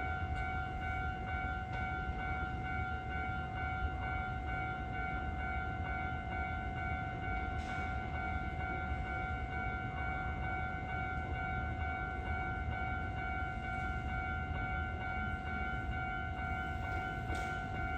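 Japanese level-crossing warning bell ringing without a break, an electronic bell that pulses rapidly, over the low rumble of a Hankyu train.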